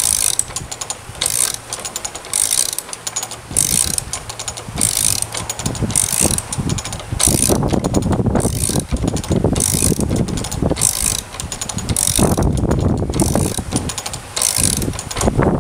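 GO Windlass pump-action ratchet windlass being rocked back and forth on a canal lock paddle spindle, its pawl giving a quick rattle of clicks on each stroke, about once a second, as it winds the paddle gear. A heavier low rumble builds underneath from about halfway.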